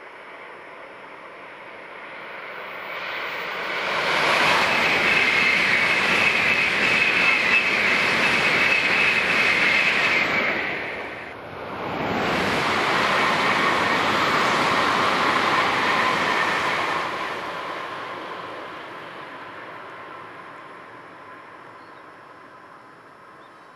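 A Shinkansen 300 series bullet train passing at high speed. The rush of air and wheels swells over a couple of seconds and stays loud with a whine, dips briefly about halfway, and then fades away slowly. After the dip the whine is lower in pitch.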